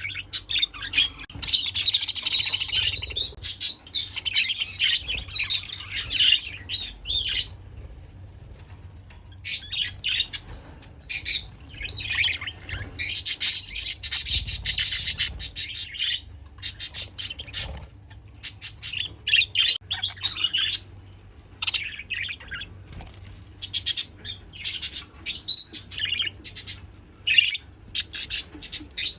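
Budgerigars chirping and chattering in quick, high twittering bursts, with a lull of about two seconds around eight seconds in.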